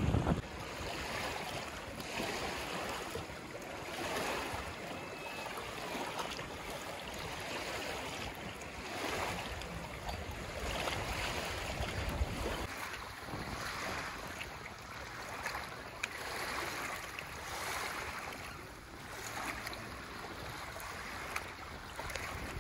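Small waves on a reservoir lapping at the shore, in soft surges every second or two, with some wind on the microphone.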